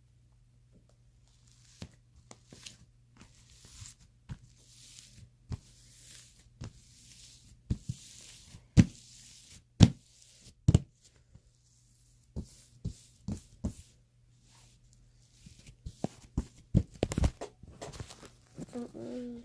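Fluffy shaving-foam slime being squeezed and stretched by hand: patches of soft crackly hiss broken by sharp little pops and clicks, a few of them loud snaps around the middle.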